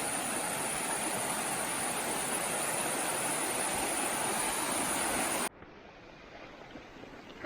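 Rushing water running steadily, cut off abruptly about five and a half seconds in, leaving a quieter outdoor background.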